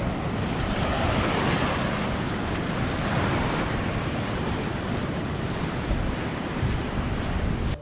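Small surf waves washing up and drawing back on a sandy beach, swelling about a second in and again near three seconds, with wind rumbling on the microphone.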